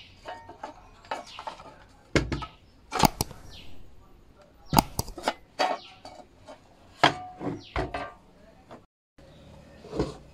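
A string of irregular sharp wooden knocks and clinks as an old wooden wall clock with a cracked glass front is handled, turned over and set down on a wooden workbench.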